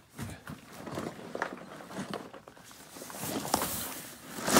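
Cardboard box being handled: scattered knocks and taps, then its cardboard flaps scraping and rustling as they are pulled open near the end, closing on a sharper knock.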